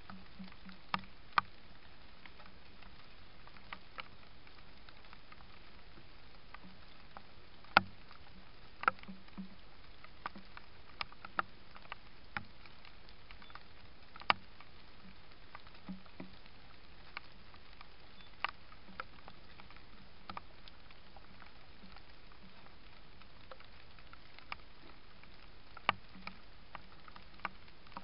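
Faint steady hiss from a trail camera's microphone, broken by about twenty irregular sharp ticks and taps, the loudest about eight seconds in.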